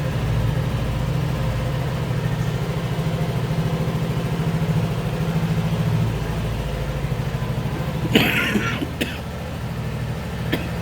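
Yamaha NMAX scooter's single-cylinder engine idling with a steady, rhythmic putter. About eight seconds in, a person coughs once, followed by a short click.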